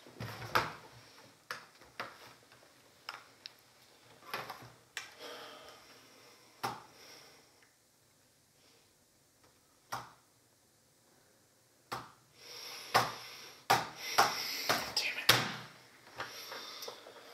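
A laptop handled on a wooden table: knocks as it is set down and opened, then scattered key taps. After a few quiet seconds broken by two single clicks, a fast, dense run of typing on the laptop keyboard near the end.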